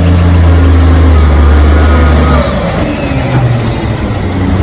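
Rear-loading garbage truck's diesel engine running with a steady low drone that drops and turns rougher about two and a half seconds in as the truck goes by, with a brief hiss about three and a half seconds in.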